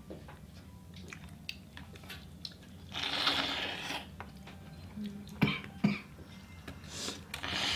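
Seafood shells being handled and cracked at the table. Scattered clicks and crackles, a burst of crunching about three seconds in and again near the end, and two sharp knocks in between.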